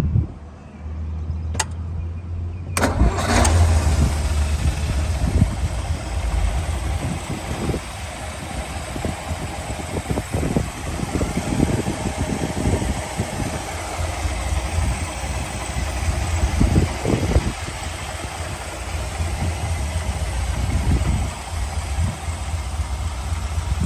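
1956 Ford Thunderbird's Y-block V8 engine running at idle. There is a click about a second and a half in, and a steady hiss joins about three seconds in.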